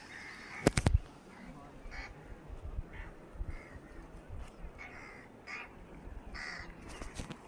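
Crows cawing in short, separate calls about once a second, with a brief cluster of loud knocks about a second in.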